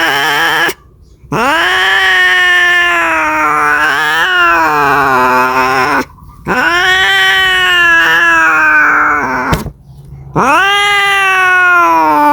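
Domestic cat caterwauling: a call ending about a second in, then three long, drawn-out yowls, each rising sharply at the start and then held and wavering, with short pauses between them. The yowling of a cat calling for a mate.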